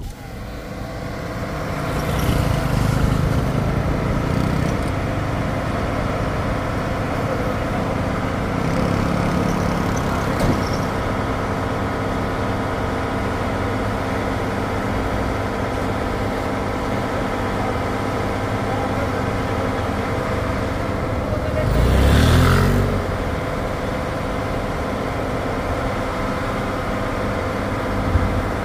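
A vehicle engine running steadily nearby. About 22 s in, a louder vehicle passes, its pitch rising and then falling away.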